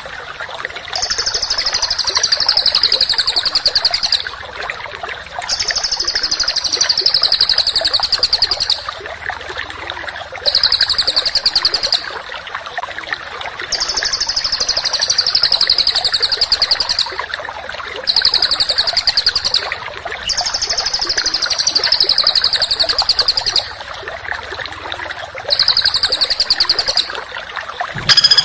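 Small songbird singing rapid, harsh, tightly packed trills in repeated bursts of one to three seconds with short pauses between them, about seven bursts, high-pitched and falling slightly through each burst.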